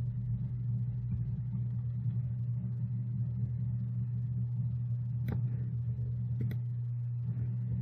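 Steady low hum or rumble, with two sharp clicks about five and six and a half seconds in.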